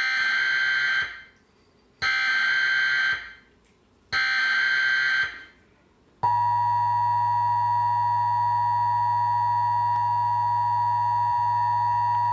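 Emergency Alert System broadcast tones. First come three bursts of SAME header data, a digital warble about a second long each, spaced two seconds apart. About six seconds in, the steady two-tone EAS attention signal starts and holds, heralding a tornado warning.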